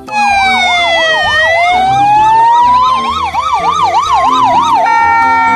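Emergency-vehicle sirens sounding together: a fast up-and-down yelp overlapping a slower wail that falls, then rises. Near the end they switch to a steady tone.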